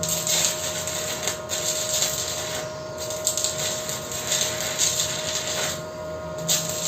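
Electric arc welding with a small 450-watt Lakoni welder: a steady crackling hiss that flares and dips, with a thin steady whine under it. The weld is building up metal on a meat grinder's worn-down steel spiral.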